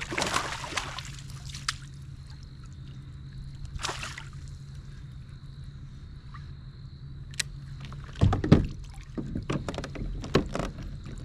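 Landing a hooked flounder from a plastic kayak with a net: scattered knocks and rustles of rod and net against the hull, with a cluster of heavier thumps about eight seconds in.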